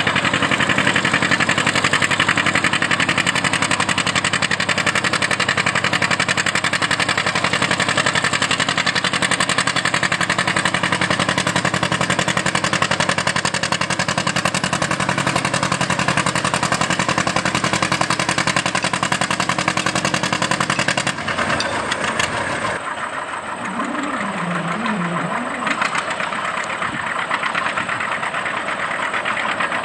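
Antique John Deere tractor engine working steadily under load, pulling a weight transfer sled. About 21 seconds in it cuts to a quieter engine running, with a brief wavering tone a few seconds later.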